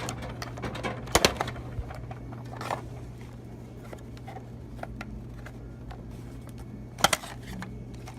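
Sharp clicks and clacks as the dollar-bill box is worked out of a vending machine's bill acceptor, the loudest a double click about a second in and another near the end, over a steady low hum.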